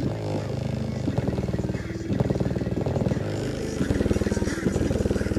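Homemade subwoofer playing an electronic bass track on its own, full range. The bass comes out as a rapid, rattly buzz rather than clean music, and it pulses in loudness with the beat.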